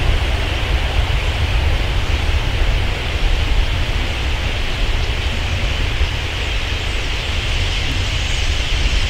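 A huge flock of common starlings pouring out of the reedbed roost at dawn: a dense, steady rush of wings mixed with the massed chatter of thousands of birds, over a constant low rumble.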